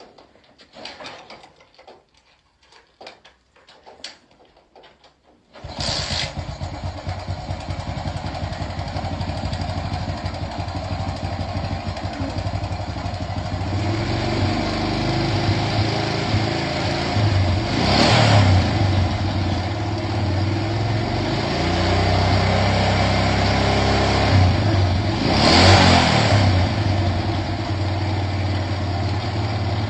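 A few clicks and knocks, then a Honda motorcycle engine catches suddenly about five and a half seconds in and keeps running. It picks up speed somewhat near the middle, with two brief revs later on.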